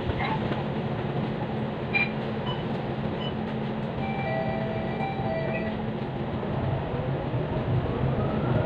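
Cabin noise inside a moving bus: a steady low engine and road rumble, with a rising engine whine over the last two seconds as it speeds up.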